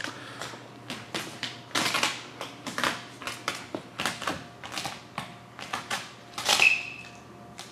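Vinyl wrap film crinkling and rustling as it is pulled and stretched over the curved front edge of a car hood and pressed down with a felt-edged hard card, in irregular strokes. The loudest stroke comes about six and a half seconds in, with a brief squeak.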